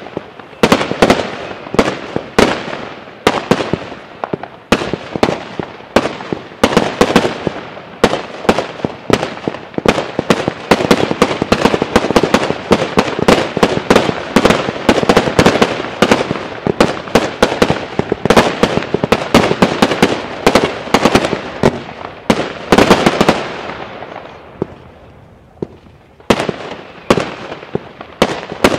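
Consumer (Class 2) firework batteries firing a rapid run of shots and bursts, many sharp bangs a second running into one another. The bangs thin out for a couple of seconds near the end, then a few more follow.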